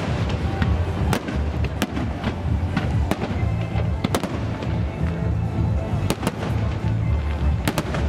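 Fireworks bursting overhead: about ten sharp bangs at irregular intervals, some in quick pairs, over loud music with a heavy bass.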